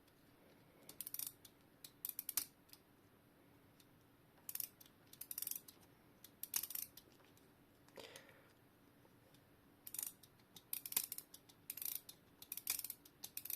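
Junghans wall clock mainspring being wound by hand: the click and ratchet wheel clatter in about five short bursts of rapid clicking, one per turn of the winder, with pauses between.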